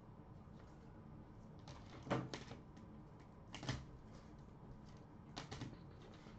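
Trading cards and pack wrappers being handled: three short bursts of clicking and rustling, about one and a half to two seconds apart.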